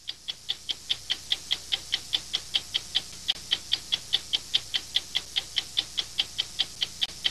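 Clock ticking steadily and quickly, about five sharp ticks a second, over a faint low hum.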